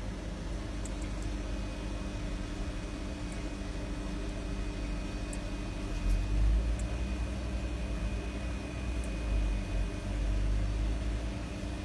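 Steady low background rumble, like distant traffic, swelling louder about halfway through.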